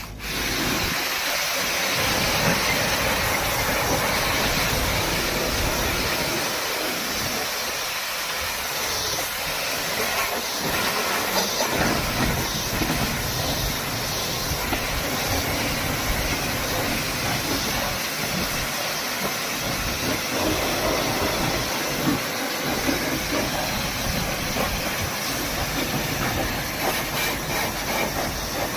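A loud, steady hiss that starts suddenly and runs on with small flickers in level.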